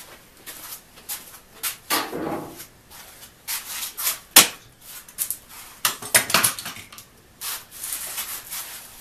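Workshop handling sounds just after a hand-saw cut: a crosscut hand saw set aside, a bar clamp handled and the sawn board moved. They come as scattered knocks, clicks and wood rubbing, with one sharp click about four and a half seconds in.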